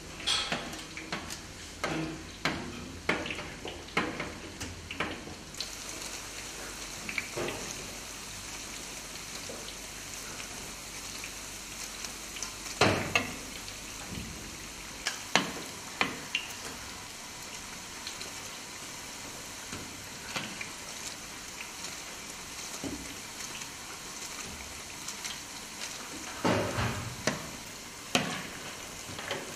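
Kadayıf dolması, walnut-filled rolls of shredded pastry dipped in egg, sizzling steadily as they deep-fry in a pan of oil. Sharp clinks and knocks of a metal skimmer ladle against the pans are scattered throughout.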